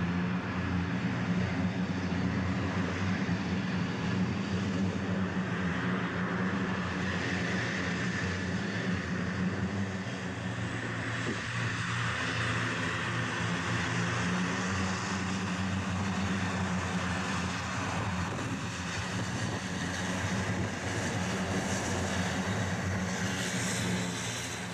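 The twin CFM56-7B turbofans of a Boeing 737-800 running at low taxi power. The steady jet hum and hiss carries on evenly as the airliner taxis.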